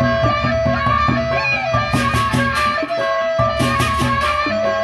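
Sasak gamelan ensemble playing a baleganjur-style piece: large gendang beleq barrel drums beating a steady pattern under bronze kettle-gong chimes ringing a melody. Two bursts of rapid cymbal clashes come in about two seconds in and again a little after three and a half seconds.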